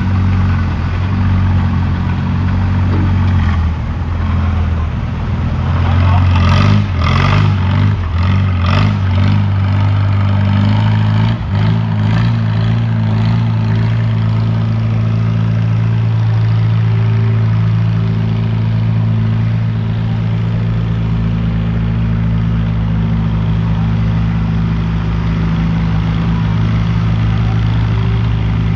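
Large engine running, revving and clattering for several seconds about six seconds in, then settling back to a steady run.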